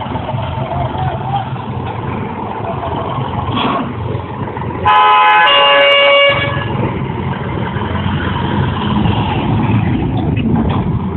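Tractor engine running steadily while it pulls a trailer load heavy enough to lift its front wheels. About five seconds in, a vehicle horn sounds once, steady for about a second and a half; this is the loudest sound.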